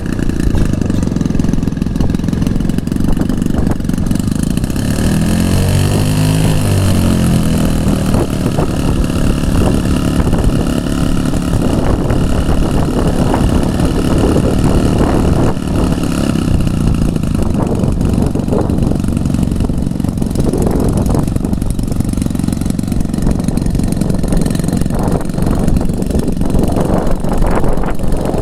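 Airplane engine running steadily, its pitch dipping and rising once about six seconds in.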